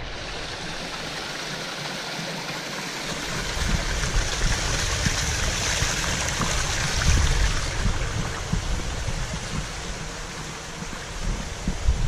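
Small rocky forest stream running and trickling over stones, a steady rush of water. Low rumbling buffets on the microphone join in about three seconds in.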